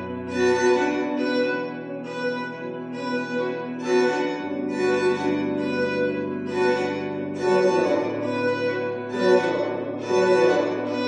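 String quartet playing pulsing minimalist music. A short bowed figure repeats about once a second over held low notes that change pitch every three seconds or so.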